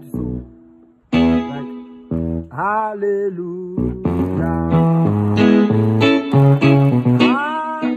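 Yamaha portable keyboard played with both hands: a quick run of melody notes over low bass notes, with a few notes sliding in pitch. It starts again about a second in after a brief pause.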